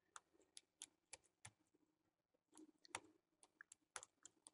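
Faint, irregular clicks of a small PH0 Phillips screwdriver turning and seating in a tiny screw on a netbook's metal screen frame, with a short pause a little before the middle.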